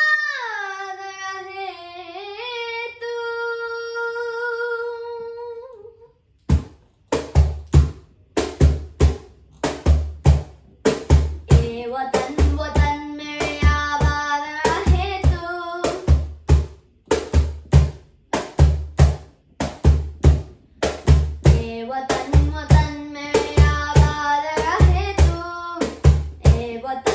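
A boy's voice holds one long sung note with vibrato. About six seconds in, a cajon starts a steady beat of deep slaps. Around twelve seconds in, a melody line joins over the beat.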